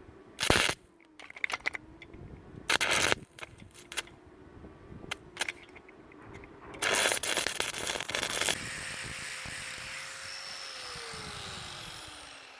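Angle grinder grinding down welds on steel in short bursts, then one longer loud pass about seven seconds in. It then runs free and winds down, its pitch falling near the end.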